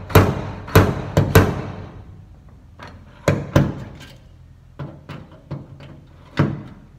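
Slide hammer's sliding weight slamming against its stop while pulling on a pin welded to a steel truck door, working a dent out. Four sharp metallic clacks come in quick succession in the first second and a half, then lighter, spaced-out ones, with one stronger clack near the end.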